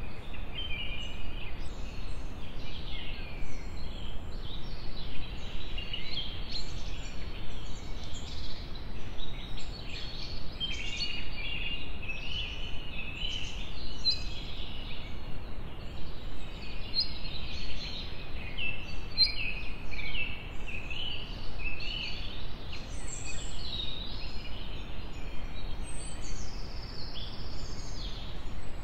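Many small birds chirping and twittering without pause in the trees and shrubs, a dense overlapping chorus of short high calls, over a steady low rumble.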